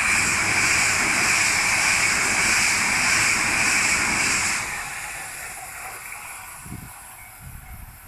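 E3-series Yamagata Shinkansen train passing at speed: a loud, even rushing noise that drops off sharply about four and a half seconds in and then fades away.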